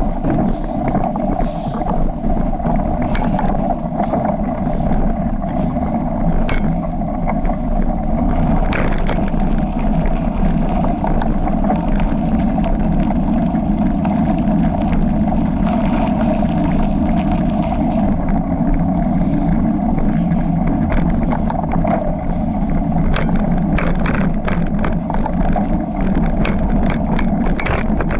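Wind rushing over the microphone and tyres rumbling on a dirt trail as a rigid early-1990s Marin mountain bike without suspension is ridden. In the last third, a rapid string of clicks and knocks as the bike rattles over rougher ground.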